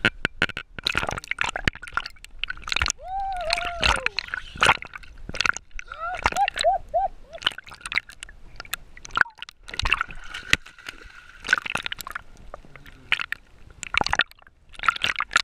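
Water sloshing and gurgling around an underwater camera, with many sharp knocks and clicks against it and a few short bubbling tones.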